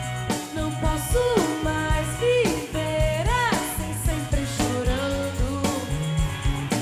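Live band music from a pop ballad, with a drum-kit beat and bass under a lead melody line that slides up and down in pitch.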